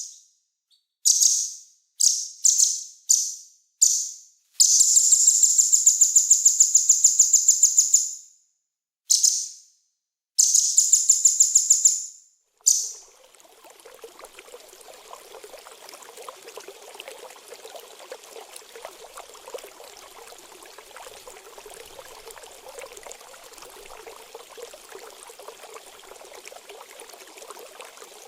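A small songbird's sharp, high-pitched song: several short bursts, then two long rapid trills. About 13 seconds in it cuts off and a steady trickle of running water takes over.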